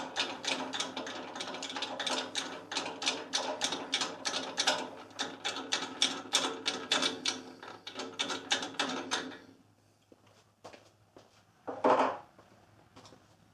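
Socket wrench ratchet clicking fast and evenly, about four or five clicks a second, as the bolts holding the bandsaw table are turned out. The clicking stops about nine seconds in, and a single short knock or scrape follows near the end.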